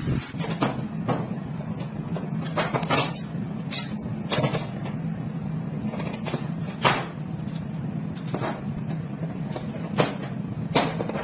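Irregular sharp knocks and clicks, about a dozen spread unevenly, over a steady low hum.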